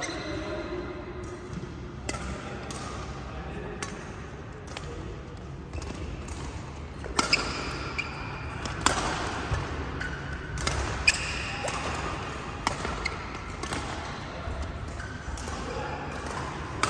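Badminton rally: rackets striking a shuttlecock in sharp, irregular cracks that come louder and closer together from about seven seconds in, with shoes squeaking on the court floor. Voices from other courts murmur underneath.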